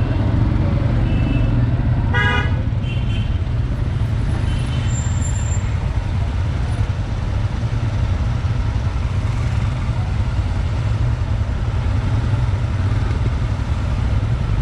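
Royal Enfield Himalayan 411cc single-cylinder motorcycle engine running at low speed in traffic, a steady low rumble. Several short vehicle horn toots sound in the first five seconds, the loudest about two seconds in.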